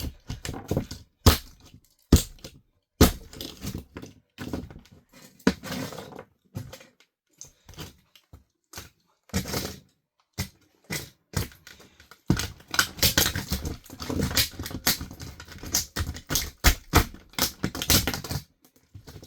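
Plastic body and parts of a toy RC car cracking and crunching under high heels: irregular sharp snaps and crackles, sparse at first, then a long dense run of crunching in the second half.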